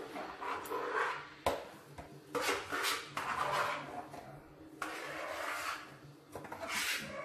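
A spoon scraping inside a plastic mixing bowl, emptying ice cream mixture into a plastic tub, with short scraping strokes and a few sharp knocks of utensil against plastic.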